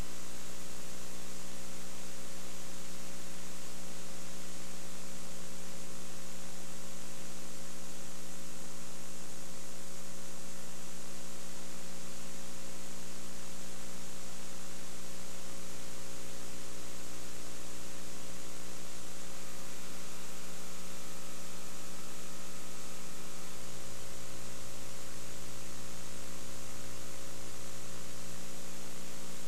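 Steady electrical mains hum with hiss, with no game sound or commentary. The lowest part of the hum gets louder about 23 s in and drops back near the end.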